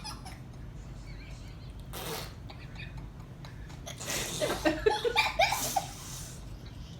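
Children laughing briefly about four seconds in, over a low steady hum.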